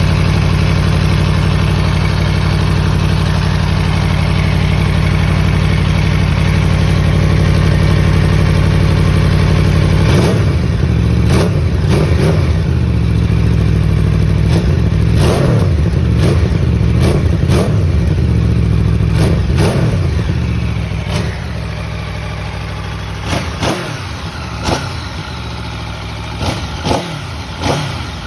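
2021 Aprilia Tuono V4's 1077 cc V4 engine through its factory stock exhaust, running steadily for about ten seconds, then revved with a string of quick throttle blips. Past the middle it settles to a quieter idle, broken by several short, sharp blips near the end.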